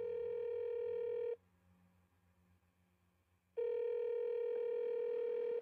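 Telephone ringback tone heard over a phone line as a call rings through: a steady tone that stops about a second and a half in and comes back after a gap of about two seconds.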